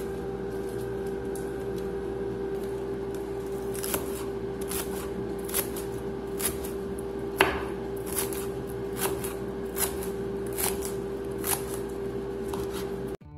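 Kitchen knife chopping leafy green stalks on a wooden cutting board: irregular knocks of the blade on the board, one louder about seven seconds in, over a steady hum.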